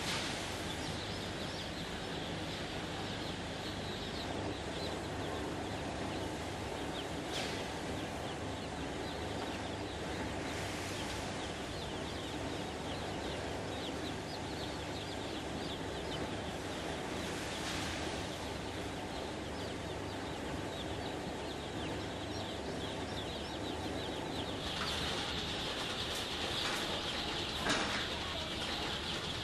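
Crowds of day-old chicks peeping constantly over the steady hum of hatchery conveyor machinery. The peeping grows louder and denser near the end, with a couple of sharp knocks.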